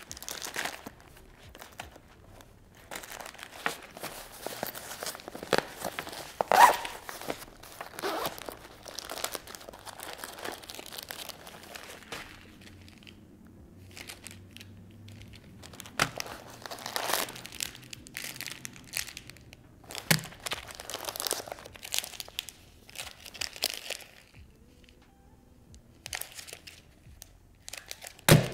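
Plastic packaging crinkling and rustling in irregular bursts as first aid supplies are handled and unwrapped, with a few sharp snaps, the loudest near the end.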